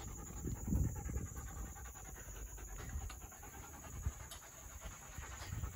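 A dog panting, with a brief low thud about a second in.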